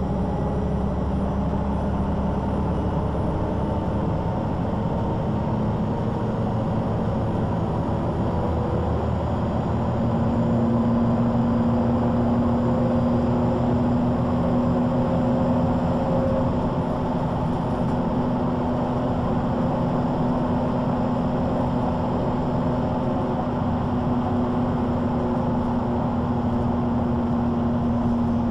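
MAN NG 313 articulated bus running on the road, its engine and ZF gearbox giving a steady drone with a humming whine that grows stronger about ten seconds in.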